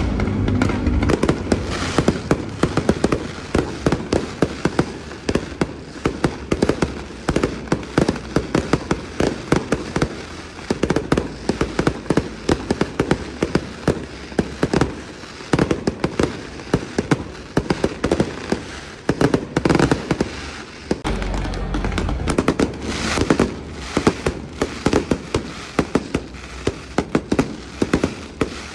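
Aerial fireworks display going off continuously: rapid crackling and popping bursts, with heavy low booms at the start and again about two-thirds of the way through.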